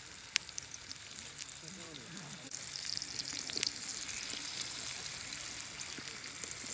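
Rib roast steak sizzling steadily in a hot cast-iron skillet over charcoal, searing. A sharp click comes about half a second in and a softer one about three and a half seconds in.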